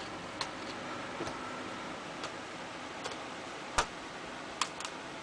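Screwdriver clicking against small screws while they are driven back into a laptop's case. A handful of sharp, irregularly spaced clicks, the loudest a little under four seconds in, over a faint steady hum.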